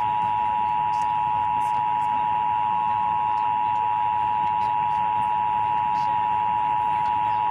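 Emergency Alert System attention signal: a steady two-tone alarm, the 853 Hz and 960 Hz pair, held without a break, with a low hum and hiss beneath it.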